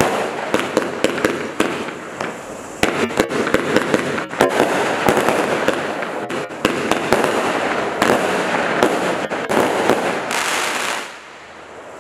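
Standard Fireworks Labyrinth single-ignition firework cake firing its finale: rapid, overlapping shell bursts with many sharp bangs. The bursts die down about a second before the end.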